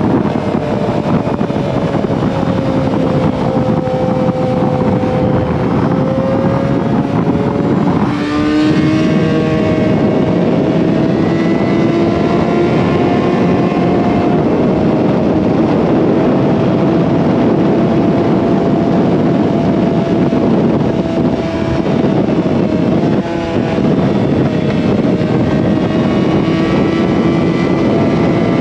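Yamaha R6's inline-four engine running at a steady cruising pace over a wide rush of wind noise. The engine note breaks off briefly twice, about eight seconds in and again past twenty seconds, and resumes at a changed pitch.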